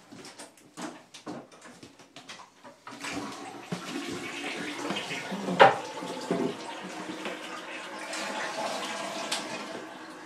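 A few short knocks and clatter, then from about three seconds in a steady rush of water from a toilet flushing, with one sharp knock partway through.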